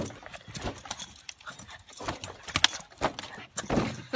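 Two Boston terriers jumping and snapping at a foil balloon: a run of irregular knocks, crinkles and jingles, the sharpest about two and a half seconds in.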